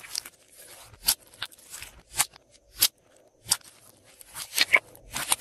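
Glossy slime being squeezed, folded and pressed by hand, giving a dozen or so sharp clicks and pops, unevenly spaced, loudest near the end.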